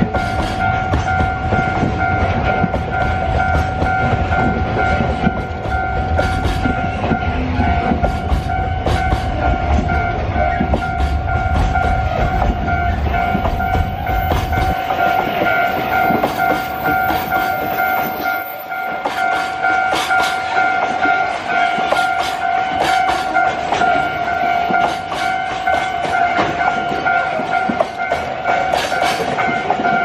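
Freight train's container flat wagons rolling past over a level crossing, wheels clicking over the rail joints, with a heavy low rumble that fades about halfway through. The crossing's warning alarm rings a steady two-tone note over it.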